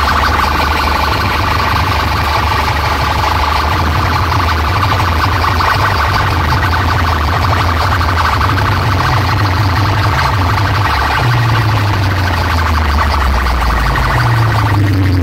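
Loud DJ music through a truck-mounted loudspeaker stack: a sustained siren-like synth tone over a heavy bass line that shifts pitch a few times.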